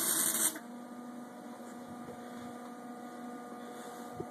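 A loud hiss stops abruptly about half a second in, leaving the welding machine's steady electrical mains hum.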